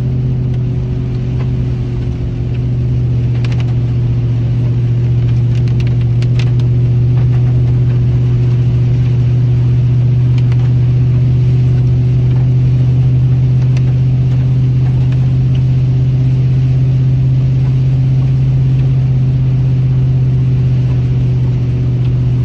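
Steady low drone of a Chevrolet Silverado 2500HD's 6.0-litre gas V8 and its drivetrain, heard from inside the cab while the truck drives along at an even pace, a little louder from about two seconds in. A few faint ticks come between about three and seven seconds in.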